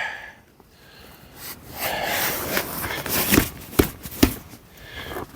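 Rustling handling noise with three or four short knocks, most of them about three to four seconds in, after a quiet first second.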